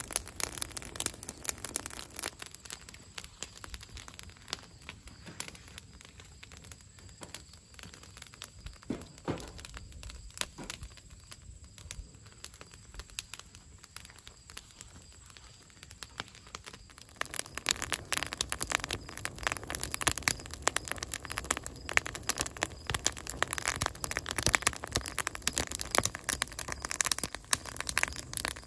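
Wood fire crackling in a metal fire pit, a steady stream of small sharp snaps from burning sticks and split logs. The crackling grows denser and louder a little past halfway.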